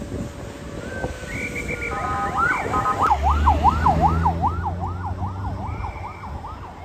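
Ambulance siren starting up and then wailing in a fast yelp, rising and falling about three times a second, with the van's engine running as it pulls away. The siren grows fainter near the end.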